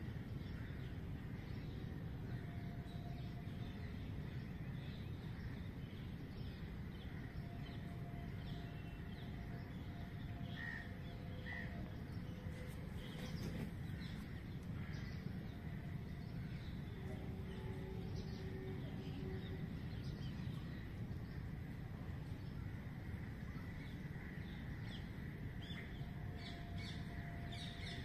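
Outdoor ambience: faint, scattered bird chirps and short calls over a steady low background noise.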